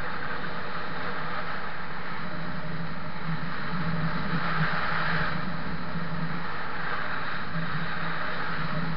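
Vehicle engine running at a steady cruise with a constant low hum, under a rush of wind over the microphone that swells briefly about halfway through.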